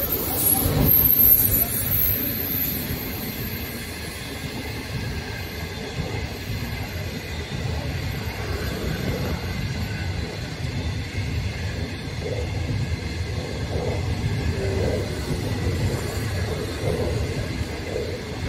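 HXD3C electric locomotive passing at speed, loudest in the first two seconds. Then a string of 25G passenger coaches rolls by with a steady rumble of wheels on rail.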